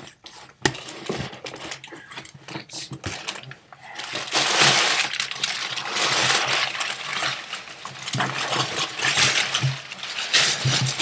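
Packaging being handled and pulled from a shipping box: scattered clicks and knocks, then from about four seconds in a long stretch of loud crinkling and rustling.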